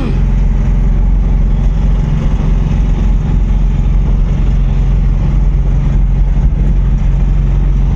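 Engine of a small goods pickup truck running steadily at cruise, a constant low drone heard from inside the cab with road noise.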